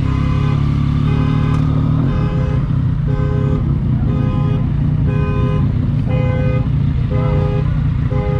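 Motorcycle engine running steadily at low speed, with a short, high, repeated beeping tone over it about twice a second.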